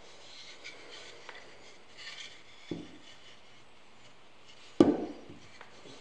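Carved cedar figure's wooden base block being handled and turned on a wooden workbench: light rubbing and scraping, a knock about two and a half seconds in, and a louder wooden knock near five seconds as it is set down.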